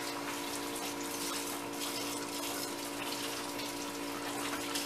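Steady rush of water, with a steady hum of several tones beneath it.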